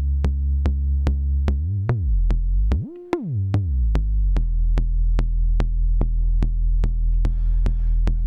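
Make Noise Shared System modular synth: a steady, even clicking pulse about three times a second over a sustained low oscillator tone. A couple of seconds in the tone's pitch sweeps up and back down, then settles lower, as the oscillator is tuned into a kick drum sound.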